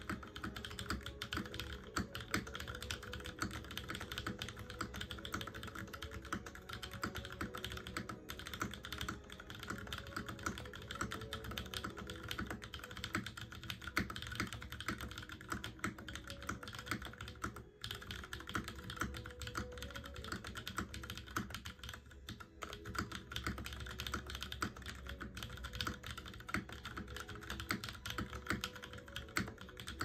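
Continuous typing on a custom top-mount tenkeyless mechanical keyboard (LifeZone LZ XE) with an aluminium plate, lubed and filmed Cherry MX Brown tactile switches and GMK ABS keycaps. It is a dense, unbroken stream of keystroke clacks, with a couple of brief pauses past the middle.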